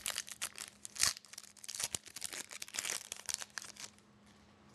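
Foil wrapper of a hockey trading-card pack crinkling and tearing as it is opened by hand, a quick run of crackles that stops about four seconds in.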